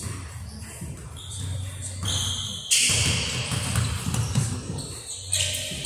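Basketball bouncing on a hardwood gym floor amid shuffling footsteps, echoing in a large hall, with a steady low hum underneath and a louder burst of noise about halfway through.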